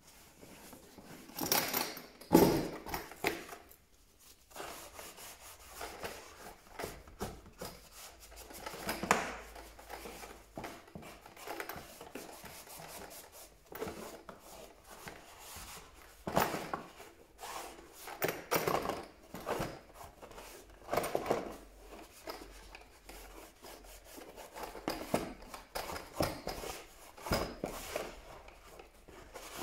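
Irregular hand rubbing and scrubbing on a hard plastic power-tool case while it is being cleaned, with a few louder scrapes and light knocks.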